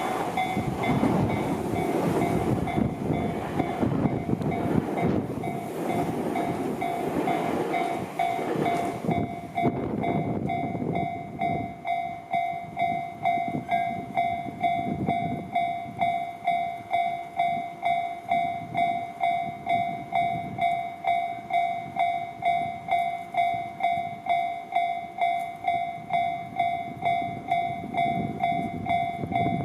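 A Tobu Tojo Line train passes a level crossing while the crossing's electronic warning bell rings. The train's rumble and wheel noise die away about nine seconds in. After that the crossing bell carries on alone, ringing at a steady, even beat.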